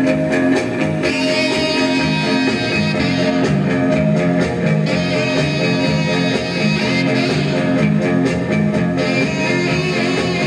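Guitar music playing from a 45 rpm record on a 1956 RCA 7-HF-45 Orthophonic record player, through its four-tube amplifier and separate woofer and tweeter speakers.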